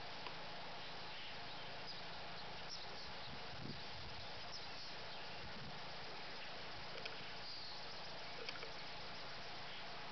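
Quiet outdoor ambience: a steady hiss with a few faint chirps and ticks scattered through it.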